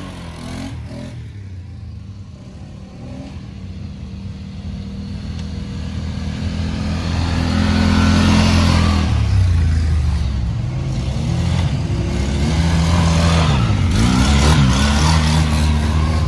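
Several ATV engines revving as the quads climb a dirt hill trail and pass close by one after another, their pitch rising and falling with the throttle. They are loudest about halfway through and again near the end.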